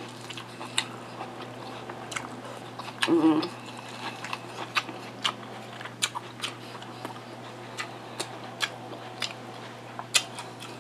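Close-up chewing and biting of Mexican street corn, with many sharp, irregular wet mouth clicks. A brief voiced hum comes about three seconds in.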